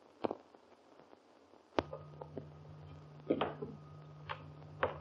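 Faint scattered clicks and soft knocks over a low steady hum of an early sound-film soundtrack. The hum is absent at first and returns suddenly with a sharp click about two seconds in.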